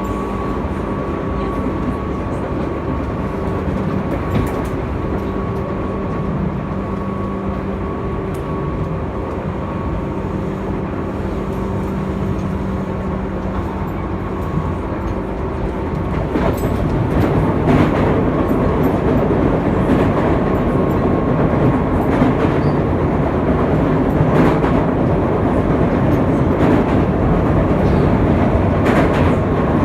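Tobu 9000 series prototype electric train running, its AFE chopper control giving a steady whine over the wheel and rail noise. About halfway through the whine fades and the running noise grows louder, with sharp clicks from the rails.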